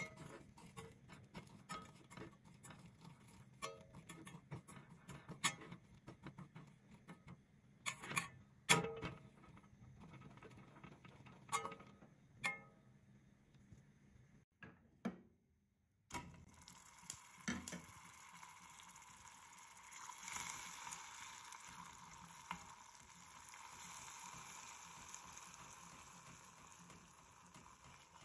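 Metal utensil clicking and scraping against a small stainless steel saucepan as sugar and butter are stirred. After a cut about halfway through, a steady sizzling hiss of the sugar and butter bubbling as they cook into caramel.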